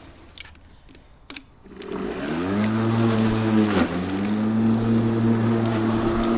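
A few clicks, then the Ozito PXC 36V (2 x 18V) cordless lawn mower's electric motor spins up about two seconds in, rising in pitch to a steady hum. It dips briefly in pitch about a second later, then runs on at an even pitch.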